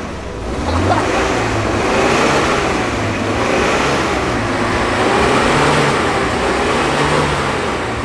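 UAZ Bukhanka van stuck in deep mud with its engine revved hard, the wheels spinning and churning mud in a steady rushing noise while the engine note rises and falls. The front axle is not driving despite four-wheel drive being engaged, so the van cannot pull itself out.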